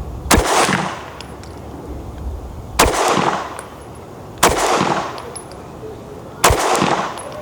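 Fusion Firearms XP-Pro pistol fired slowly in aimed single shots: four shots, one every two seconds or so, each with a short ringing echo.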